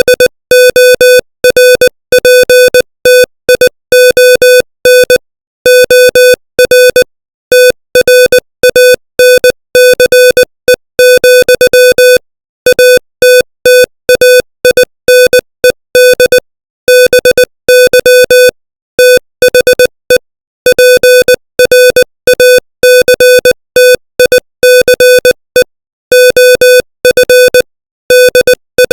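Morse code sent at 20 words per minute as a mid-pitched buzzy beep, keyed on and off in quick dots and dashes, with short gaps between letters and longer gaps between words, spelling out English text.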